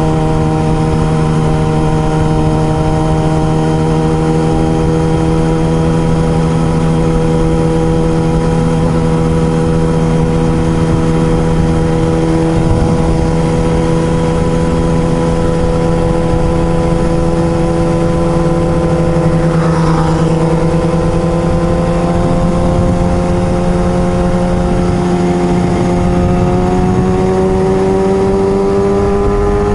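Kawasaki ZX-6R sport bike's inline-four engine running at a steady, held pitch, its note creeping slowly higher over the last few seconds.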